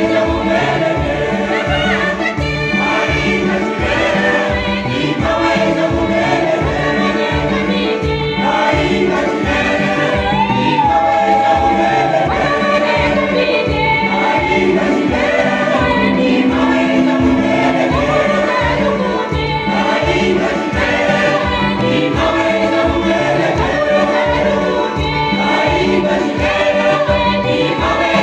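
A mixed church choir singing a gospel song in many voices, over a steady low drumbeat of about two to three strokes a second.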